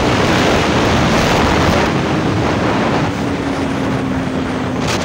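Heavy wind rush on the microphone of a KTM RC 200 single-cylinder motorcycle riding at about 100 km/h, with a steady engine note underneath.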